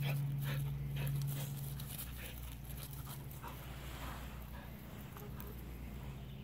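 Dog panting: quick rhythmic breaths, about two to three a second, that fade out after the first second or so. A low steady hum runs beneath it and stops about two seconds in.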